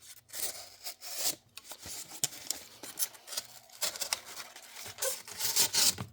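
Folding pocket knife blade cutting into wood: a run of short, irregular rasping strokes.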